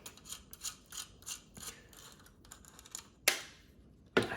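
Small metal parts scraping and clicking as a power strip's coaxial jacks are worked loose: a run of quick scratchy strokes, about three a second, then two sharp clicks near the end, the first the loudest.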